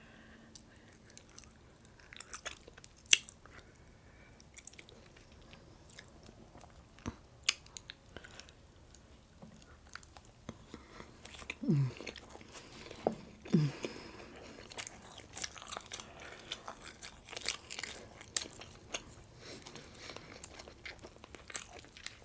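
Close-miked chewing and biting of breakfast food, with scattered wet clicks and crunches that become busier in the second half. Two brief falling hums from the eater come about halfway through.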